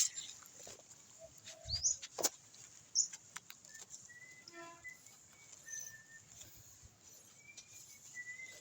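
A few scattered knocks and scrapes of hand-digging around a sweet potato tuber in gravelly soil, mostly in the first three seconds, with short bird chirps.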